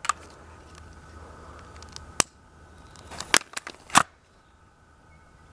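Handling clicks and clunks from a break-barrel pellet gun loaded with a firecracker charge: a sharp click about two seconds in, then the barrel being snapped shut, with the loudest clunk about four seconds in.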